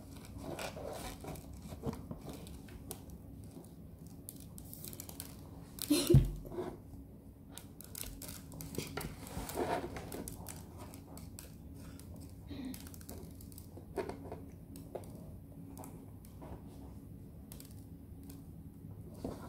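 Quiet handling and eating noises as a child licks sprinkles off a plastic plate: scattered small clicks and rustles, with one louder knock about six seconds in.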